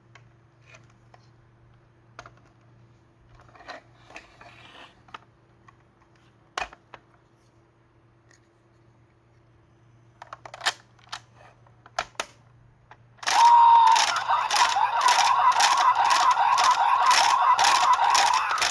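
Scattered plastic clicks and handling of a toy transformation device, then, about 13 seconds in, the toy's electronic sound effect starts loudly: a quick beat of about three pulses a second under a steady tone, which fades near the end.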